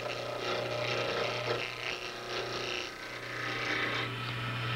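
JET mini wood lathe running with a steady motor hum while a gouge cuts a spinning wooden pen blank on a mandrel. The scraping of the cut swells and fades as the tool is moved along, easing off briefly about three seconds in.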